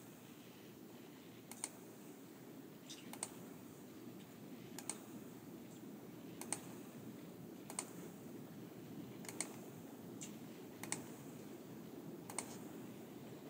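Computer mouse clicking, single sharp clicks about every second and a half with a few quick pairs, over a faint steady hum.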